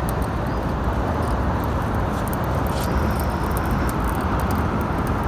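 Fishing reel being cranked while fighting a fish, its faint irregular ticks over a steady rumbling background noise.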